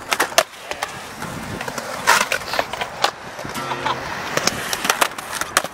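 Skateboard wheels rolling over concrete, with several sharp clacks of the board striking the ground and ledge. An acoustic guitar is strummed in short snatches.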